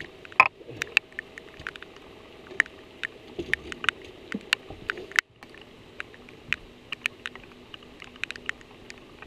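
Rain, heard as irregular sharp ticks of raindrops striking the camera housing and boat, several a second, over a steady hiss, with a faint steady hum underneath.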